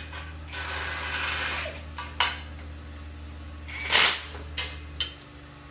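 Metal clinks and rattles of an exhaust header and its hardware being handled and fitted to the engine, with a louder clank about four seconds in. A steady low hum runs underneath and stops about five seconds in.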